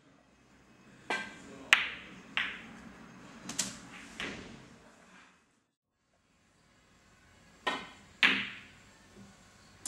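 Snooker cue and balls clacking during play: a quick run of five sharp clicks as cue strikes cue ball and balls knock together, then after a brief silence two more sharp clicks from a second shot.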